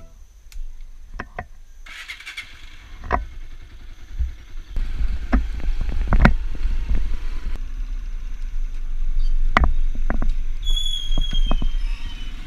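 Small motorcycle riding over a rough dirt track: a steady low engine-and-wind rumble with repeated knocks and rattles as it jolts over bumps. Near the end there is a high squeal that falls in pitch.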